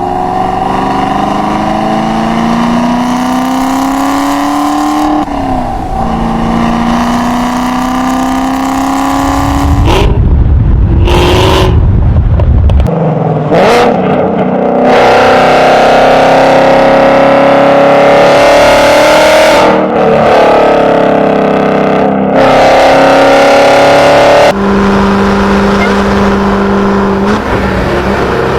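A string of short clips of American muscle car engines revving and accelerating, their pitch climbing, with abrupt cuts from one car to the next every few seconds.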